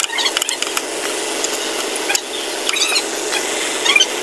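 Light clicks and knocks of hands working a rubber belt onto a power steering pump pulley, over a steady background hiss, with a few short high chirps about two-thirds of the way through and near the end.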